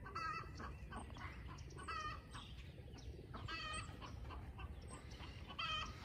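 Chickens clucking faintly, a short call about every one and a half to two seconds.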